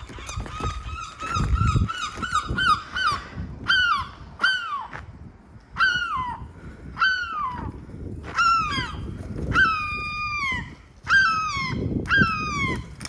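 Gulls calling: a quick run of short, even notes for the first three seconds, then about nine loud, drawn-out calls, each falling in pitch.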